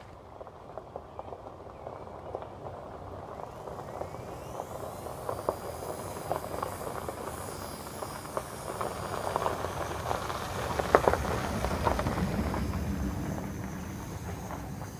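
A car approaching and passing: a hiss of road noise that slowly swells, is loudest about eleven seconds in, then fades, with scattered crackles throughout.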